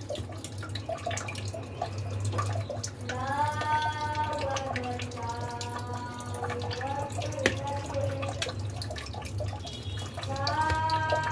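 A fork clicking now and then against a plate, under a high, wavering voice making long drawn-out sounds in several phrases.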